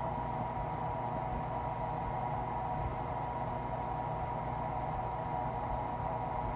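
Steady hum with hiss, unchanging throughout.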